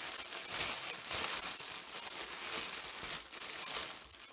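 Clear plastic wrapping crinkling irregularly as hands handle a wrapped bundle of ziplock bags of diamond-painting drills, dipping briefly near the end.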